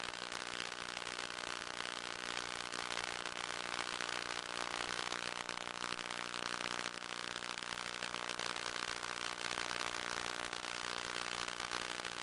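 Electric motor and propeller of an FPV RC plane running steadily in flight, a constant buzzing drone over a hiss of airflow.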